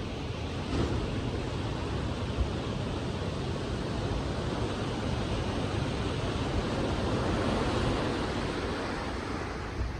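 Sea waves washing onto a beach: a steady rush of surf that swells about seven seconds in and eases off near the end.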